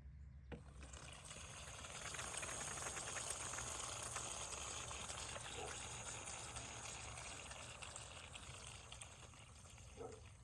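Water spraying out of the top of a leaking outdoor spigot whose seal has broken, starting about half a second in and going on steadily.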